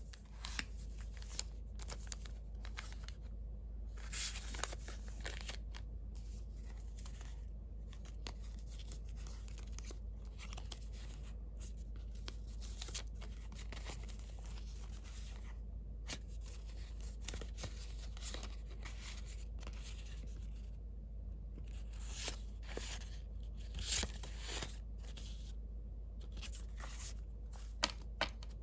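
Hands handling paper tags and cards and clear plastic pockets: irregular paper rustling, sliding and crinkling, with a few sharper rustles.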